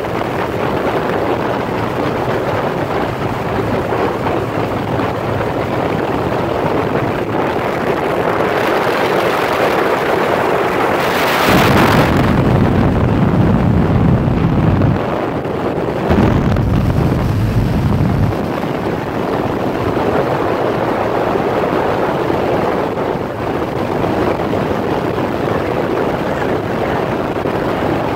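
Motorcycle riding at road speed: engine running under a steady rush of wind over the microphone. About halfway through, two spells of heavier low rumble, with a brief hissy gust just before them.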